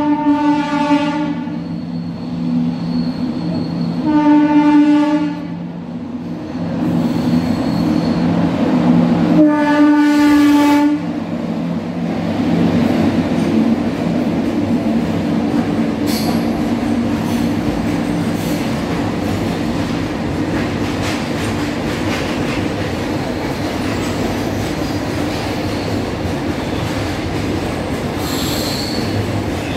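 Indian Railways WAG7 electric locomotive sounding its horn in three blasts of about a second and a half each, roughly four to five seconds apart, as it runs through the station without stopping. About eleven seconds in, the horn gives way to the steady rumble and wheel clatter of a long rake of covered freight wagons rolling past at speed.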